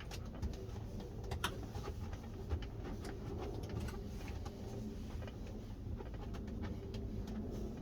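Low steady rumble with a faint hum, broken by a few small clicks and taps, the loudest about a second and a half in.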